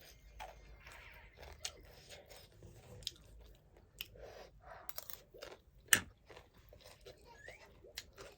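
A person chewing and crunching food close to the microphone, with scattered sharp clicks and soft mouth noises. One loud crisp click comes about six seconds in.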